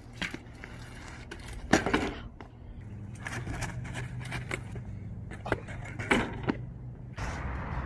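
BMX bike wheels rolling over concrete with a steady rumble, with sharp clattering knocks about two seconds in and twice more after six seconds, the loudest the first.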